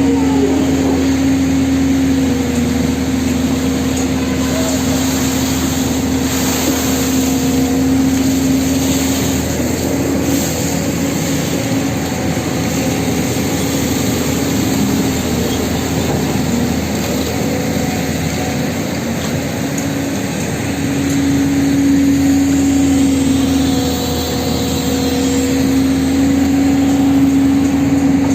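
An engine running steadily for the whole stretch, a constant pitched hum over a noisy background, its level easing slightly in the middle and rising again near the end.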